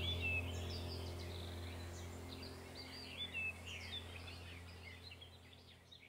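Small birds chirping and twittering over a steady low hum, the whole fading out gradually to near silence.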